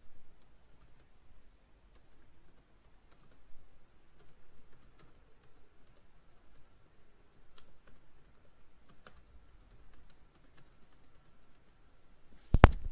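Typing on a computer keyboard: light, irregular keystrokes. A single sharper, louder click comes near the end.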